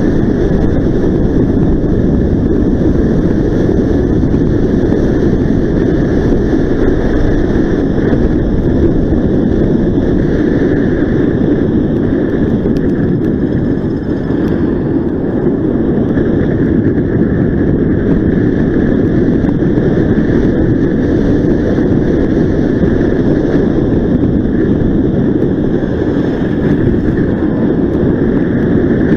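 Steady wind rush buffeting the microphone of a rider moving at speed on an electric unicycle, with the noise of the street's traffic mixed in.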